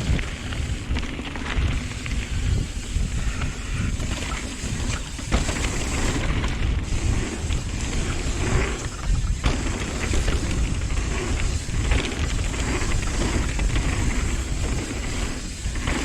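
Wind buffeting the microphone over a constant rumble as a 2021 Nukeproof Dissent downhill mountain bike runs down a rough trail, with frequent clatters and knocks from the bike and tyres hitting bumps.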